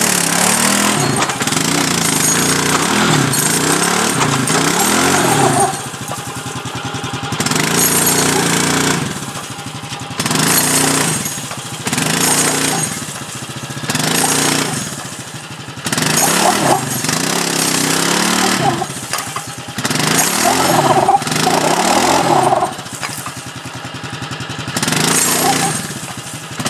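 Bombardier Traxter 500 ATV's Rotax 500 cc single-cylinder four-stroke engine revving under load as it pulls a tree out by a tow line. It holds a high, wavering rev at first, then surges up and drops back over and over, about every two seconds.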